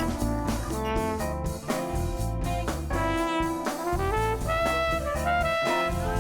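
Background jazz music with brass instruments and a steady bass line.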